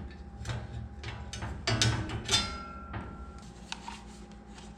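Knocks and clatter of metal parts being handled inside an over-the-range microwave while its blower fan is taken out and turned to vent upward. One knock about two seconds in rings briefly.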